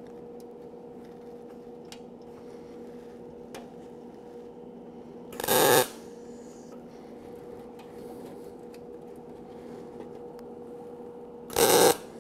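Two short MIG tack welds on 20-gauge sheet steel, gas-shielded, from an Eastwood MIG 135 welder. Each arc crackles for about half a second: the first about five seconds in, the second near the end.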